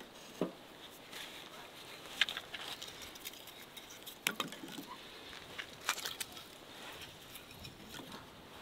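Split firewood being stacked by hand: pieces of wood knocking and clattering against the logs, about four sharp knocks with smaller clicks between them.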